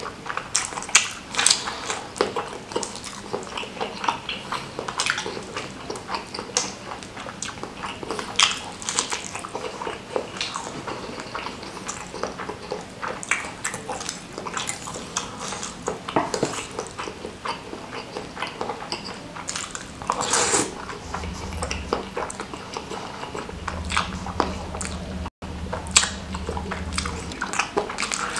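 Close-miked mukbang eating sounds: wet chewing, smacking and slurping of beef meatballs and rice vermicelli in spicy chili broth, with a fork and wooden spoon now and then clinking on the dish. The sound cuts out for a split second near the end.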